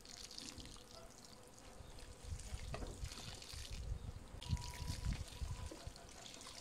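Water trickling steadily from the spout of a plastic watering can onto the soil of a potted planting, a faint pouring sound.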